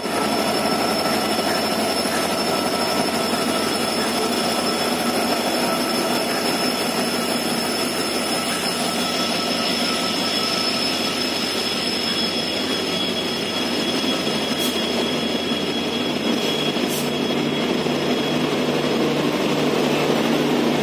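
Diesel locomotive's engine running loud and steady with a high turbocharger whine as the train pulls slowly out of the station. A low steady hum joins in near the end as the generator car comes alongside.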